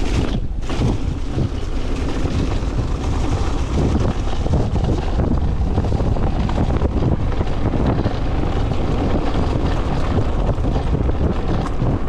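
Wind rushing over the bike-mounted camera microphone, mixed with the tyres of an e-mountain bike rolling at speed over dry leaves and dirt trail; a steady loud rush throughout.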